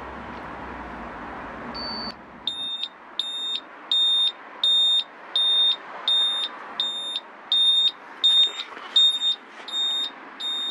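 Towbar electrics kit's audible relay buzzer beeping: a run of short, high-pitched beeps in quick succession, starting about three seconds in. The beeping shows that the trailer's right-hand indicator circuit is working under load.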